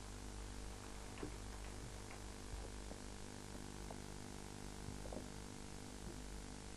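Steady low electrical hum from the public-address system during a pause, with a few faint small ticks from the hall.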